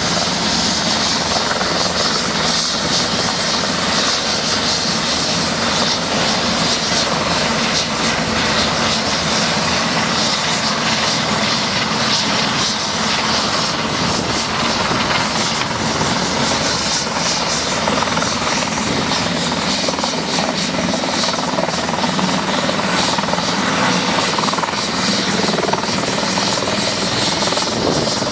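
Eurocopter EC130 B4 helicopter coming in to land and hovering low over the pad: its rotor and turboshaft engine run with a loud, steady, even noise and a thin high whine over it throughout.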